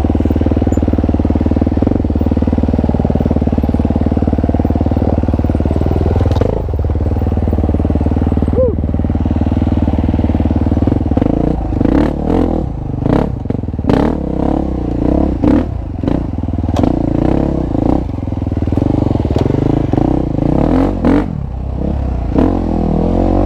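KTM dirt-bike engine running steadily while riding. From about halfway on it revs up and down, with many sharp clattering knocks.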